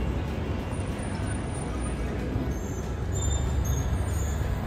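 Steady low rumble of road traffic on a busy city street, with a few faint high squeaks about three seconds in.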